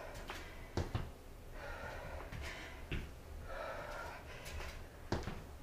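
A woman breathing hard from exertion during lunges, with two long breathy exhales, and a few short soft thumps of sneakers landing on a foam exercise mat.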